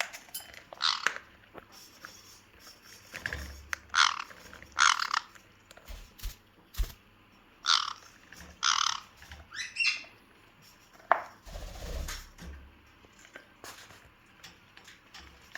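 Caique parrot giving a dozen or so short squawks and chirps, about a second apart, while wrestling a rubber chicken toy, with a few low handling bumps.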